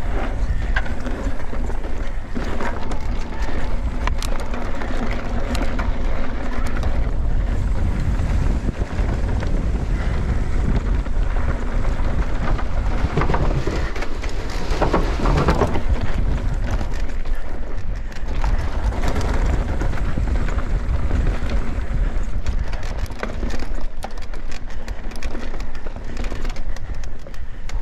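Mountain bike ridden at speed: heavy wind buffeting on the microphone over the rolling of the tyres on the trail. About halfway through comes a louder, rattling rumble as the tyres cross a wooden plank bridge.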